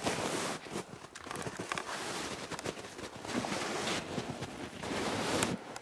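Footsteps in snow with clothing rustling as a person walks uphill.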